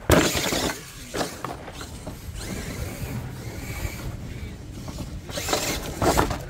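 Radio-controlled monster truck driving on a dirt freestyle course: a steady rush of tyres and drivetrain on the dirt, with a loud knock at the very start as the truck comes down close by and louder clattering bursts near the end.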